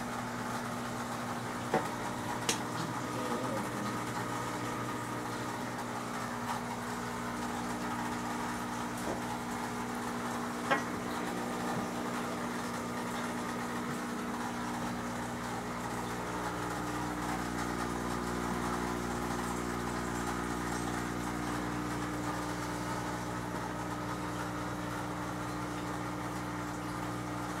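Aquarium air pump for the bubbler humming steadily with several low tones, with a few short clicks in the first ten or so seconds.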